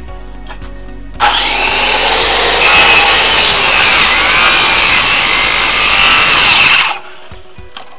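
Power saw cutting through framing lumber: a loud cut starts about a second in, runs for about five and a half seconds with the motor's pitch wavering under load, and stops abruptly near the end.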